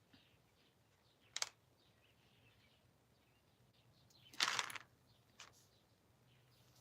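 Faint handling of packaging: a sharp click about a second and a half in, then a short rustle about four and a half seconds in, with near quiet between.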